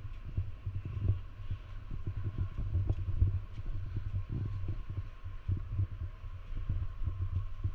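Footsteps climbing sandy log trail steps, heard mostly as dull, irregular low thuds and rumble from the handheld camera jostling on the microphone, over a faint steady hum.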